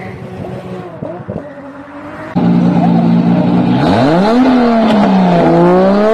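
A car engine at a distance, then, about two seconds in, a loud Toyota Supra engine held at steady high revs. Its pitch dips and climbs back as it is revved up, eased off and revved again.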